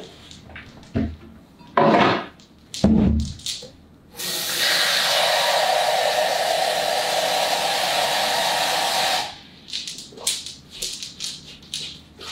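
Kitchen faucet running into a pot for about five seconds as it fills with water, a steady rushing that stops suddenly. Before it, a couple of sharp clatters as the pot is handled.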